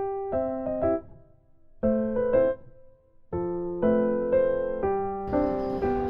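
Background music: a light electric-piano melody in short phrases with brief pauses between them, joined by a soft hiss about five seconds in.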